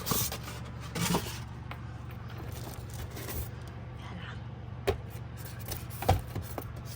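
A few sharp plastic clicks and knocks from handling a Canon G2020 printer and opening its cover, spaced a second or more apart, over a steady low hum.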